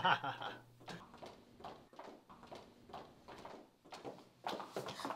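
Faint footsteps of several people walking on a hard floor, short knocks at an even pace that grow a little louder near the end.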